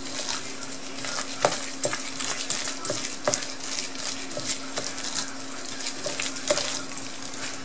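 Gloved hand mixing and squishing a ground-pork meatball mixture in a stainless steel bowl: a steady wet crackling squelch with a few taps against the bowl, over a steady low hum.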